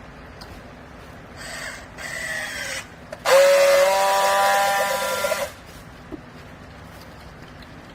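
Vertical clothes baler's hydraulic press running: a short whirr about one and a half seconds in, then a louder steady whine with a hiss for about two seconds that cuts off suddenly.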